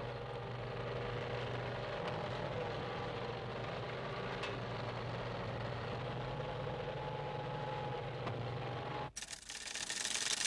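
Heavy vehicle engine running steadily with a low hum. About nine seconds in it cuts off abruptly and a steady hiss takes over.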